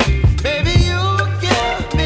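Background pop music with a steady beat and bass line, and a sung melody.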